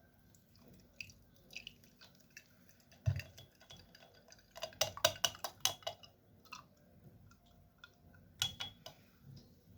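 Kitchen utensils and containers being handled: scattered light clicks and knocks, a dull thump about three seconds in, and bunches of sharp clinks around five seconds and again near the end.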